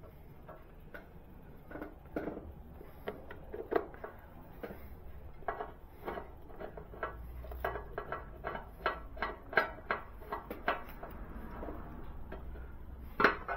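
Small sharp clicks from a Phillips screwdriver driving in the side-cover screws under the skid plate. They come a few at a time at first, then from about five seconds in as a steady run of about three clicks a second for several seconds.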